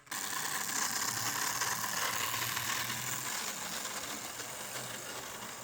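Model diesel locomotive 4469 running along the layout's track: a steady whirring, clicking rattle of its electric motor, gears and wheels on the rails. It starts suddenly and fades a little as the train moves away.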